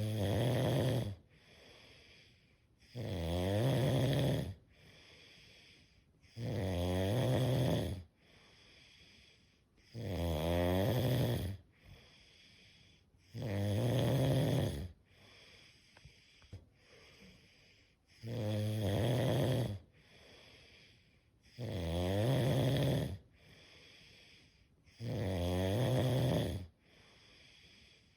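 A sleeper snoring: loud, rasping snores of a second or so each on the in-breath, about every three and a half seconds, with quiet breathing between them and one longer pause in the middle.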